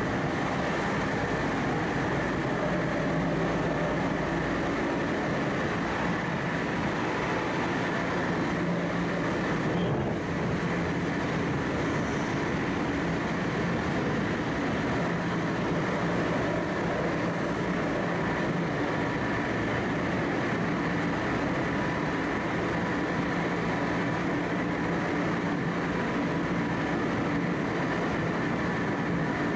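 Cabin running noise of a Tokyo Metro 05 series chopper-controlled subway train at a steady speed: a continuous rumble of the wheels and car, with steady high tones held above it, heard from inside the passenger car.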